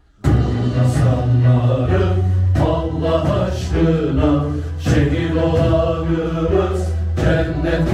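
Four men singing a Turkish folk song (türkü) together in unison, in full voice with long held notes. The singing starts abruptly just after the start.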